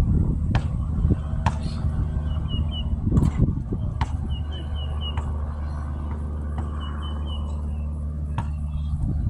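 A basketball bouncing on the hard court a few times at irregular intervals, with the loudest hit about three seconds in, over a steady low hum. Birds chirp in short runs of three or four.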